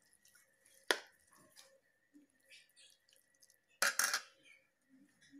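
A metal spoon clinking against a ceramic plate: one sharp knock about a second in, then a short clatter just before four seconds.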